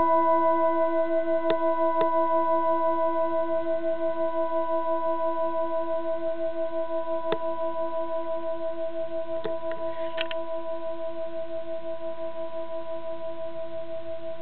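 A long, sustained ringing tone with a steady pulsing waver, slowly fading, with a few faint clicks scattered through it.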